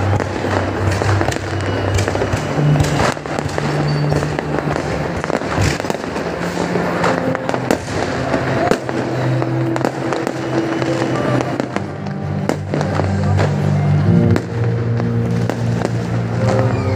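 Aerial fireworks going off in a fast, continuous run of sharp bangs and pops, over loud music with held low notes.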